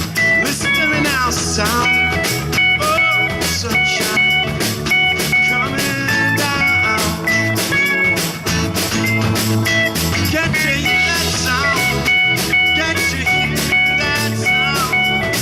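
Instrumental band music with a lead guitar playing bending, sliding lines over bass and a steady drum beat.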